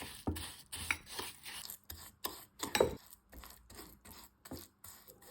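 A spoon stirring and scraping a gritty mix of brown sugar, ground coffee, honey and oil in a bowl: short, irregular scraping strokes about one to two a second, the loudest about three seconds in.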